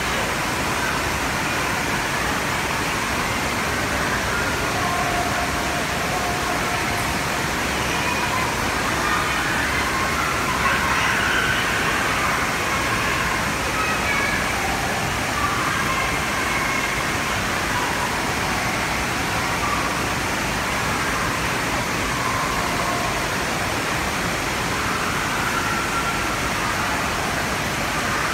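Steady din of an indoor water park: a constant wash of water noise with faint, distant children's voices and shouts echoing in the hall.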